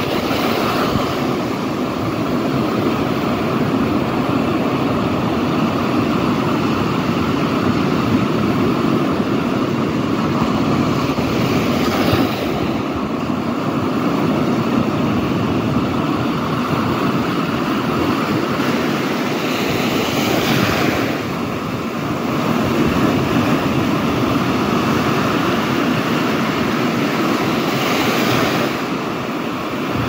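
Small surf breaking on a sandy beach, a continuous rush of waves with foam washing up the shore. The hiss swells as a wave breaks, about three times, roughly eight seconds apart.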